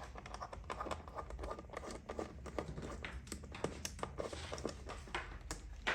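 Small irregular clicks, ticks and light scraping of a T8 Torx screwdriver working a screw loose inside an opened iMac, with hands handling the metal parts.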